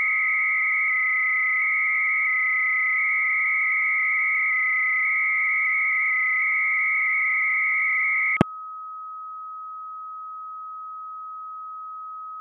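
Bell 103 300-baud modem exchange over a phone line. The answering 56K modem's data tones warble loudly between two high pitches over line hiss, while a steady lower carrier tone from the Minimodem software holds beneath. About eight seconds in, the answering modem's tones cut off with a click, leaving only the steady lower tone, quieter: the answering modem has given up on the degraded connection.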